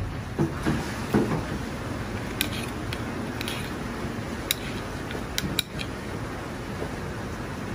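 Hands placing a prawn on a thin sheet of edible wafer paper on a plastic cutting board: a few soft taps in the first second, then scattered sharp clicks and ticks, over steady background noise.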